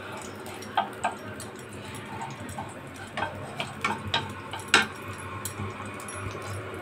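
Wooden spatula tapping and scraping in a kadhai as the ghee melts: a scatter of sharp clicks, the loudest a little under five seconds in, over a low steady hiss.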